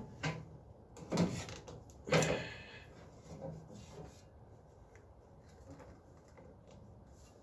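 Jump-starter clamps being handled and clipped onto a tractor battery: three sharp knocks and clicks in the first two seconds or so, then faint small handling noises.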